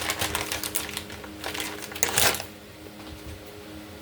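Quick clatter of small clicks and knocks from items being handled on a kitchen counter, with a louder noisy burst about two seconds in, then quieter.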